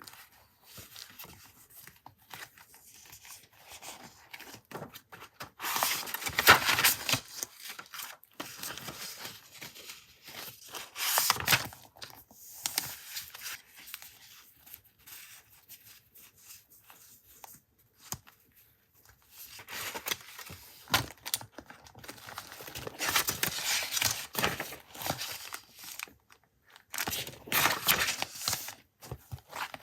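Paper being handled by hand: several bursts of tearing and crinkling, the loudest about six seconds in and again near the end, with quieter rustling between.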